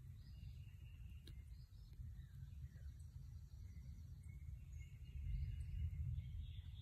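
Faint low rumble with a few faint bird chirps.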